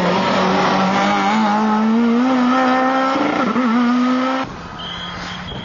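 Fiat Grande Punto S2000 rally car's engine running hard at high revs as the car passes, the note climbing slowly. The revs dip briefly a little after three seconds. The sound drops away suddenly about four and a half seconds in, leaving a quieter engine note.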